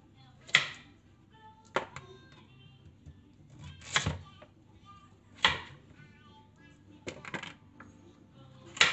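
Chef's knife chopping through carrot pieces and knocking on a wooden cutting board, sharp single chops every second or two, with a quick run of several cuts about seven seconds in.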